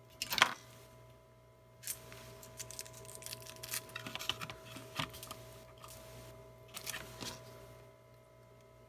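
Thin aluminium shield foil inside a MagSafe power adapter being worked loose and bent back, giving a sharp click about half a second in, then irregular small crinkling clicks and scrapes. A faint steady hum runs underneath.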